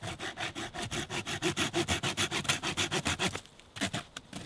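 Bahco Laplander folding saw cutting through a wooden stick in rapid back-and-forth strokes, with a short pause about three and a half seconds in. The blade is very blunt.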